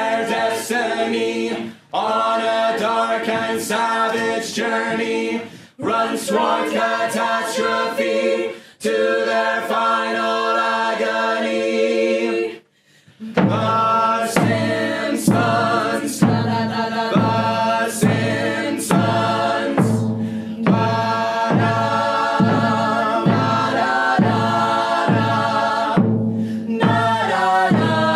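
A cast of actors singing together in phrases with short breaks. About halfway through, after a brief pause, a steady drum beat of a little under two strokes a second comes in under the voices.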